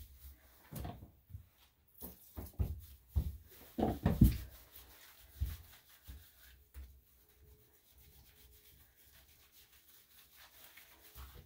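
Hands scrubbing shampoo lather into a wet puppy's curly coat: irregular wet rubbing strokes, loudest about four seconds in, growing faint in the second half.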